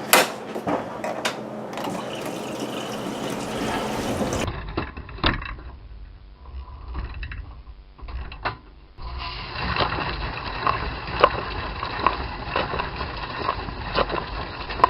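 A dishwasher starting its wash cycle: mechanical clicking and water filling, then from about nine seconds a steady rush of spraying water with repeated knocks.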